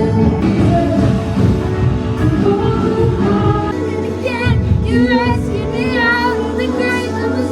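Several voices singing a song over instrumental accompaniment, the held notes wavering with vibrato.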